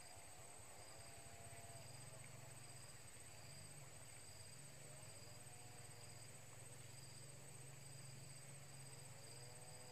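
Faint insects in the riverside vegetation: one keeps up a steady high trill while another gives a shorter high chirp about once a second.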